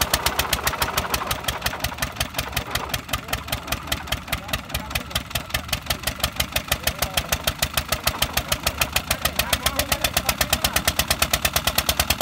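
Petter single-cylinder diesel engine running steadily with a loud, even exhaust beat of about seven strokes a second, belt-driving a heavy wheat thresher. It is running slow under the load, a thresher too big for so small an engine.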